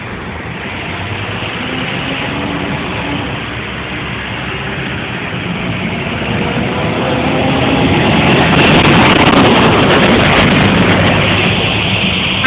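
Scania truck's diesel engine running as the lorry approaches, growing louder to a peak about nine seconds in, then easing slightly.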